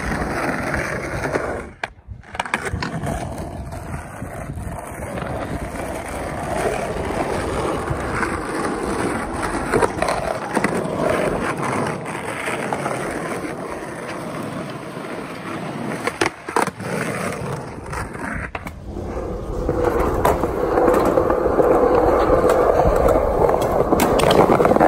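Skateboard wheels rolling over asphalt and then concrete pavement, a steady rolling noise, broken a few times by sharp clacks of the board striking the ground. About three quarters of the way through, the rolling gets louder.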